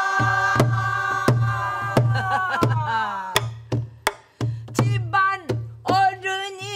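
A woman sings a long held pansori note that glides down and fades about three seconds in, over steady strokes on a buk barrel drum struck with a stick. Shorter sung phrases come back near the end.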